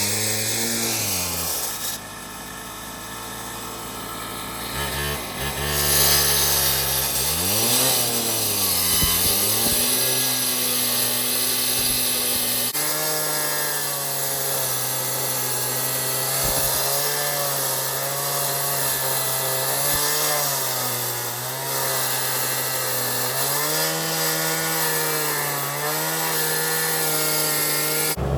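Engine of demolition equipment running under varying load, its pitch dipping and recovering several times as it bogs down, then holding fairly steady with small wobbles.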